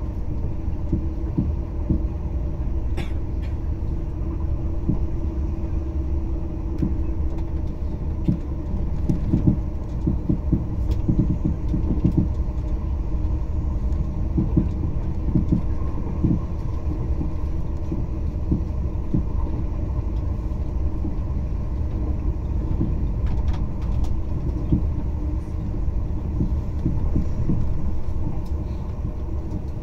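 TGV high-speed train running on the line, heard from inside the passenger cabin: a steady low rumble with a hum, and irregular low knocks and a few sharp clicks from the carriage and track.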